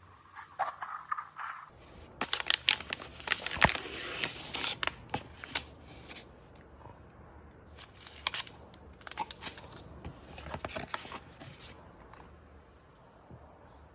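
Cardboard parcel being unpacked: the box flaps and the packaging inside crackle and rustle in quick irregular handling noises, busiest in the first few seconds and sparser later.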